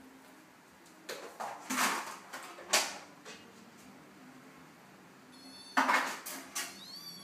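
Two cats play-fighting on a tiled floor: sharp taps and scuffs of paws and bodies on the tile, clustered between about one and three seconds in and again around six seconds, with a brief high squeak near the end.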